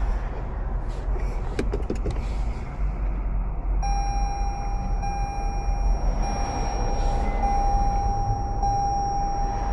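Low steady rumble with a few clicks in the first two seconds, then from about four seconds in a continuous high electronic warning tone that holds steady.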